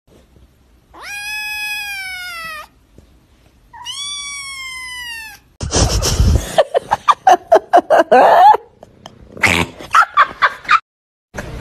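Young black-and-white kitten meowing twice, two long meows of about a second and a half each, gently falling in pitch. From about halfway through, a louder run of rapid, choppy sounds, about six a second, takes over.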